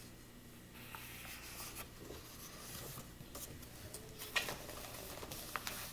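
Paper pages of a coloring book being turned and slid by hand: a soft papery rustle, with a few sharper handling ticks near the end.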